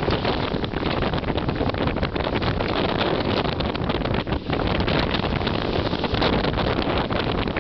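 Strong wind buffeting the microphone in gusts, a loud rushing roar with no breaks.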